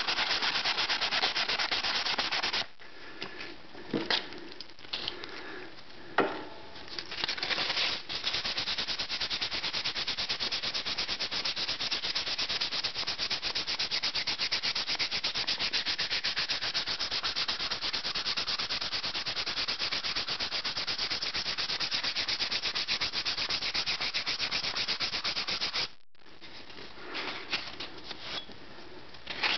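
Rapid back-and-forth hand sanding of a rusty steel hatchet head with 220-grit wet/dry sandpaper and WD-40. The rubbing stops about three seconds in, with only a few short scrapes, then picks up again and runs steadily until a few seconds before the end, when it pauses and briefly resumes.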